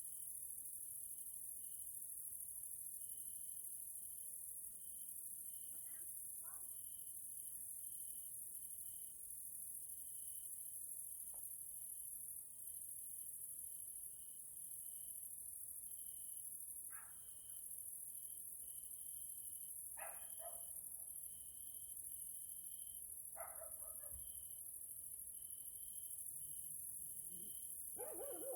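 Evening chorus of grasshoppers and crickets: a steady high-pitched chirring, with a lower short chirp repeated over and over. A few brief faint calls from another animal break in now and then, the last and strongest near the end.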